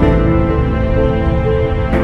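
Music: held melodic notes moving from pitch to pitch over a steady low accompaniment.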